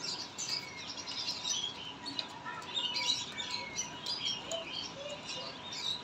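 Many caged birds chirping at once: a dense chatter of short, high, overlapping chirps and peeps from a shop full of bird cages.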